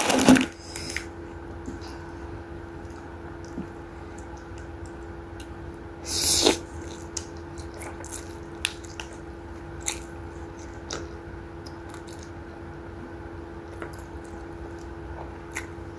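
A person eating instant rabokki noodles close to a clip-on microphone: one loud slurp of noodles about six seconds in, then small wet chewing and mouth clicks. A faint steady hum runs underneath.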